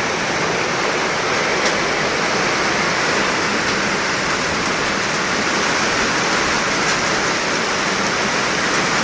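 Heavy rain falling, a steady, fairly loud hiss with no break.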